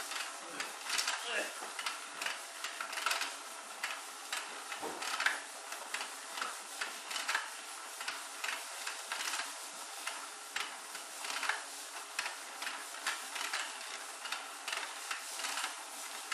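Battery-powered 'Let's Go Fishin'' toy game running: its plastic pond turning with a continuous rattle of rapid, irregular clicks from the plastic fish and mechanism, with small knocks as the toy fishing rod pokes at the fish.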